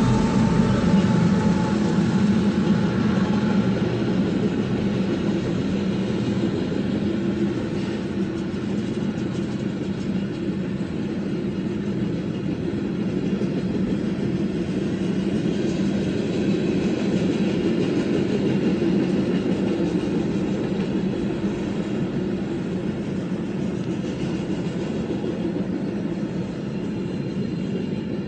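Freight train rolling past: a diesel locomotive's engine drone fades over the first few seconds as the last unit goes by, then a long steady noise of freight car wheels running over the rails.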